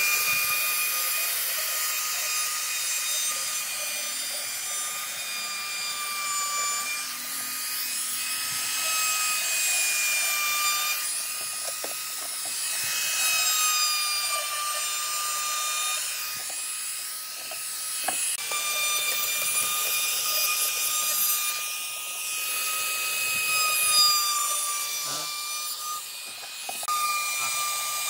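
Handheld trim router running, its bit cutting along the edges of wooden slats and panels: a steady high whine whose pitch sags slightly now and then as the cut loads the motor, over the hiss of wood being cut.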